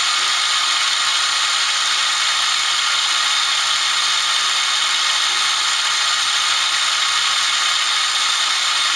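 Live tool spindles of a Citizen L20 CNC Swiss-type lathe running at 3500 RPM: a steady high-pitched whir with a thin whine in it.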